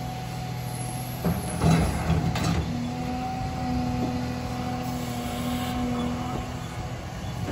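Caterpillar 323 excavator's diesel engine running steadily. Between about one and three seconds in come a few knocks and scrapes as the bucket takes hold of a chunk of broken concrete.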